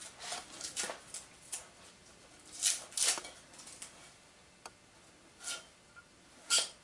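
Lashing being ripped and torn loose by hand: irregular short scratching and tearing noises, a few with a faint squeak, loudest about three seconds in and near the end.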